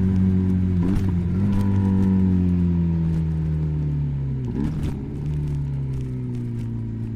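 Benelli BN302's parallel-twin engine running through an Arrow exhaust with the dB killer fitted. The engine note slowly falls in pitch, with brief breaks about a second in and again about four and a half seconds in.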